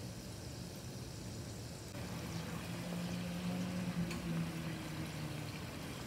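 Samosas deep-frying in a pot of hot oil, the oil bubbling and sizzling steadily, fuller from about two seconds in. A low steady hum runs for a few seconds in the middle.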